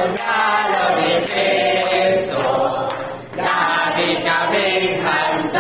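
A young woman's voice singing into a handheld microphone, amplified through a PA, with long held notes and short breaks between phrases.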